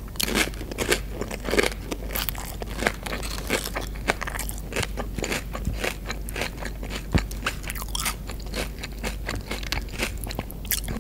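Tortilla chips being bitten and chewed, a dense run of crunches in the first two seconds, then steady crunching chews.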